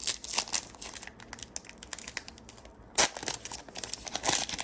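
Trading-card pack wrapper crinkling and tearing as a pack is opened, a run of quick crackles with the loudest burst about three seconds in.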